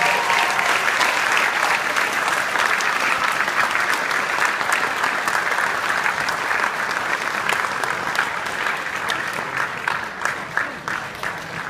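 Audience applauding, dense clapping that thins out near the end into scattered separate claps.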